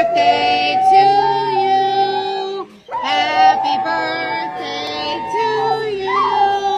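Music with a high, synthetic-sounding singing voice holding long notes. There is a brief break just under three seconds in, and it cuts off suddenly at the end.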